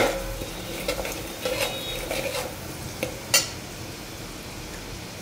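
A flat metal spatula scrapes and stirs garlic, curry leaves and cumin-mustard seeds frying in oil in a metal pot, with the oil sizzling underneath. There are several sharp scrapes, the loudest a little after three seconds in. After that the stirring stops and only a steady hiss is left.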